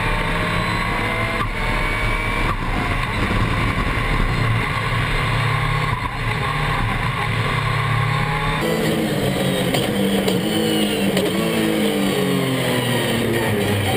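Dacia Duster No Limit hill-climb race car's engine revving hard, its pitch rising and falling through the gears under full acceleration. A little past halfway the sound cuts to a closer, clearer engine note inside the cockpit.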